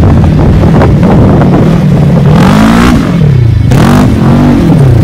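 Loud Polaris RZR XP 1000 side-by-side engine revving on sand, its pitch rising and falling twice in the second half. Two short bursts of hiss come with the revs.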